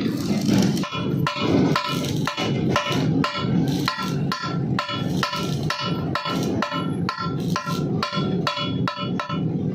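Hammer blows on steel, a steady run of sharp ringing strikes, about two to three a second, beginning about a second in.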